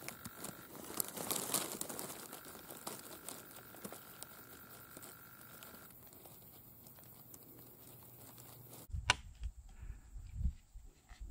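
Camera handling noise: a hand and clothing rubbing over the microphone, a dense rustling and crackling. About nine seconds in it cuts off to a quieter track with one sharp click and a few dull thumps.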